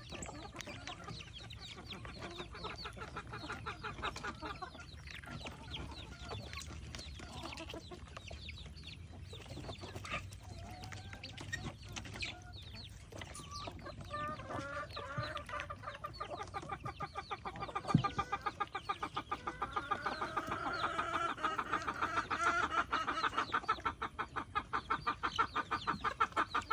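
Backyard fowl clucking and chattering in quick, rhythmic runs that grow louder in the second half, with a single sharp knock about two-thirds of the way through.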